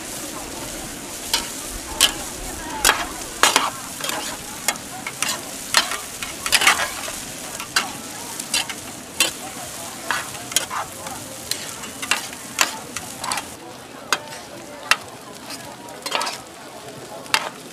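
Noodles sizzling in a large, shallow metal wok while a long metal spatula stirs and tosses them, scraping and knocking against the pan irregularly, roughly twice a second, over a steady frying hiss.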